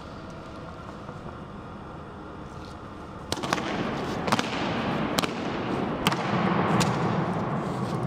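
Honour guard's boots striking the stone floor as the soldiers march in a changing of the guard: a run of sharp, loud cracks starting about three seconds in, roughly one every second, each ringing on in a long echo. Before the marching starts there is only a steady background hum.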